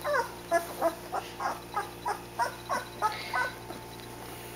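A 13-day-old Boerboel puppy crying in a steady string of short whimpers, each falling in pitch, about three a second, stopping about three and a half seconds in.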